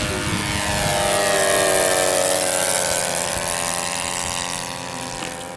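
Propeller engines of two radio-controlled model warbird planes flying past together. Their steady note swells about two seconds in, then falls slowly in pitch and fades as they go by.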